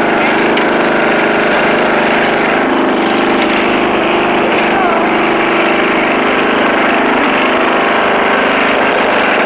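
Riding lawn mower's engine running steadily through a custom aftermarket exhaust.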